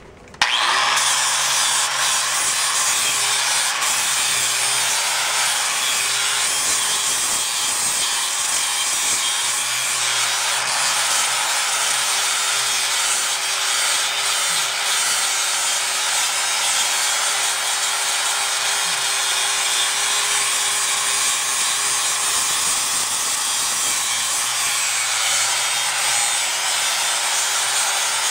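Angle grinder with a wire wheel scrubbing rust off the steel rear differential housing of a Toyota Tundra, stripping it toward bare metal. It switches on at the very start and then runs steadily: a loud scratching noise over a steady motor hum.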